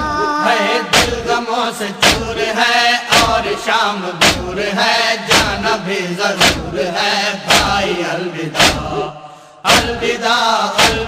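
Music with chanting male voices over a heavy drum beat that lands about once a second; the music drops away briefly about nine seconds in, then comes back.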